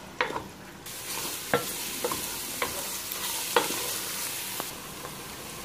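Finely chopped onions sizzling in hot oil on high heat as they are browned, with a wooden spoon repeatedly scraping and knocking against the bottom of a coated pan as they are stirred. The sizzle grows louder about a second in and eases near the end.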